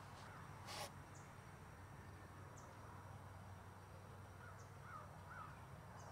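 Near silence with outdoor ambience: a few faint, short bird calls and one brief soft hiss less than a second in.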